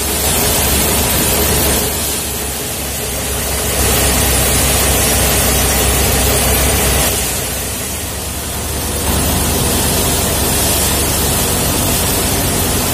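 Tractor-driven threshing machine running at speed while soybean plants are fed in: its spinning drum gives a dense rushing whir over a low engine hum. The loudness swells and dips every few seconds.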